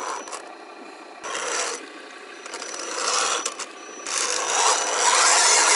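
Radio-controlled scale crawler truck with a Land Rover Defender 90 body climbing out of a muddy puddle: its electric motor and geared drivetrain whine and grind in bursts as the tyres work through the mud. The grinding grows louder and holds steady from about two-thirds of the way in.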